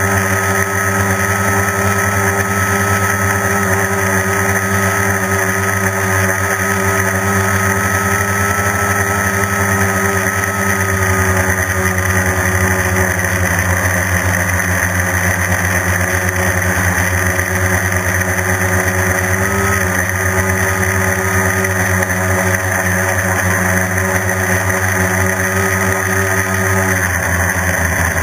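Quadcopter's electric motors and propellers running steadily in flight, heard from the onboard camera as a loud droning hum with a whine, its pitch shifting slightly and dipping near the end.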